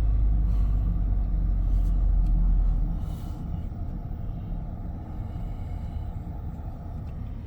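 Low rumble of a car on the move, which eases off and gets quieter about three seconds in.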